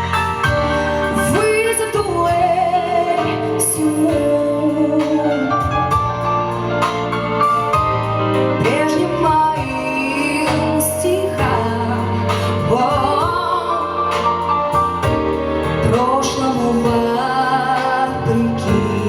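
Music: a song with a woman singing a wavering melodic line over steady instrumental accompaniment.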